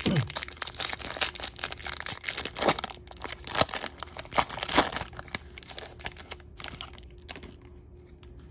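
Foil wrapper of a Topps baseball card pack being torn open and crinkled, a dense crackle for about five seconds that thins out and goes quiet near the end.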